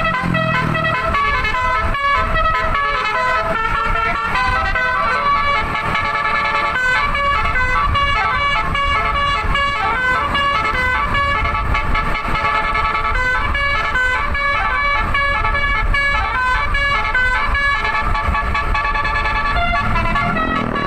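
Basuri 'telolet' multi-tone bus horn playing a tune, stepping quickly from note to note, over a low rumble.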